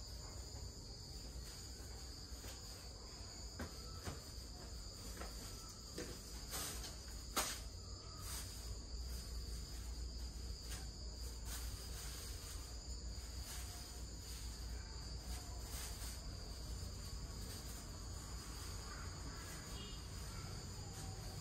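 Crickets trilling in a steady, high, unbroken chorus, with a few faint sharp taps in the first half.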